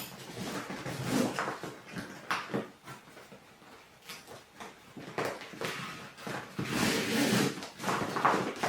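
Rustling and scraping of a heavy PVC duffel bag and its webbing compression straps as the straps are pulled tight through D-rings, in irregular bursts.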